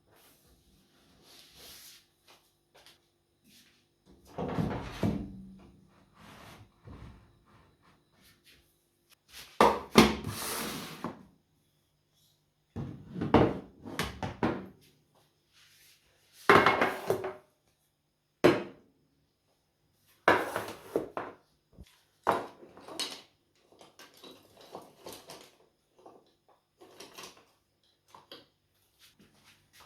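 Irregular household handling noises: a dozen or so short clatters and knocks of objects being moved about, like drawers or cupboard doors and things being set down.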